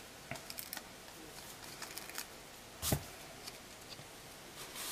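Faint handling of foam adhesive dimensionals and card: small clicks and soft rustles as the dots are peeled from their backing sheet, with one louder tap about three seconds in.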